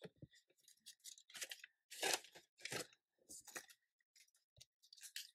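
Paper cash and envelopes being handled: faint, irregular rustles and crinkles of paper, the loudest about two seconds in.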